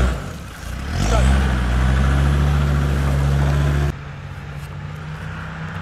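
Land Rover Discovery Td5's five-cylinder turbodiesel revving up twice and held at high revs for about three seconds. It then drops suddenly to a lower, quieter steady engine note.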